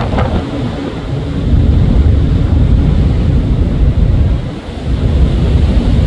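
Strong wind buffeting the microphone in gusts, easing briefly a little before the end, over the hiss of rough, breaking seas whipped up by a nor'easter.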